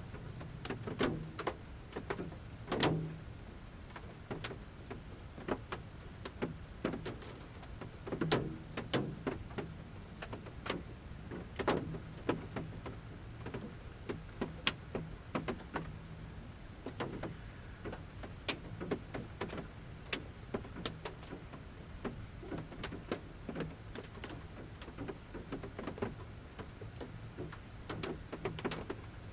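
Large raindrops dripping from the forest canopy onto a camper van's metal roof, heard from inside: separate irregular taps, some louder, over a low steady background hum.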